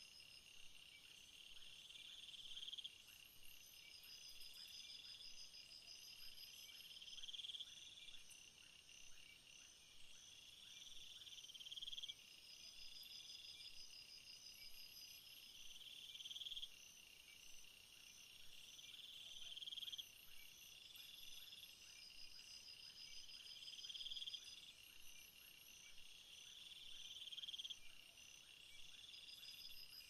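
Faint night-time jungle insect chorus. A buzzing trill swells and cuts off sharply about every four seconds, over steadier pulsed chirping and intermittent high, rapid chirps from other insects.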